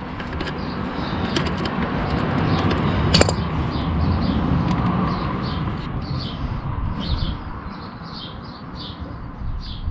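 A bird chirping, short falling chirps about twice a second through the second half, over a rumbling background noise that swells toward the middle and fades. A few sharp metal clicks, about one and three seconds in, from pliers working a split pin into a motorcycle footpeg pivot.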